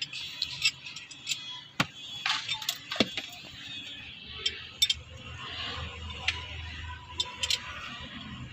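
Irregular metallic clinks and knocks of hand tools on bolts and steel parts while a car's manual steering rack is being unbolted for removal.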